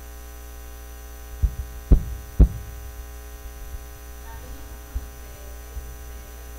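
Steady electrical mains hum from a church PA system. About one and a half to two and a half seconds in it is broken by three quick thumps, the kind made when a live microphone is handled.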